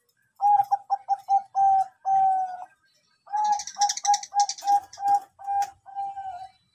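Bangkok-type zebra dove (perkutut) cooing in two phrases, each a run of short, quick notes ending in one long, slightly falling note.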